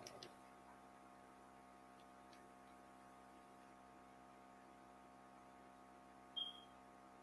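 Near silence: room tone with a steady faint electrical hum, a few faint clicks at the start and one short high beep about six seconds in.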